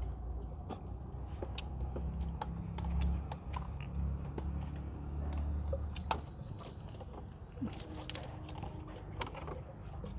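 Scattered light metallic clicks and clinks of hand tools working on a car's alternator mounting, over a low, uneven rumble.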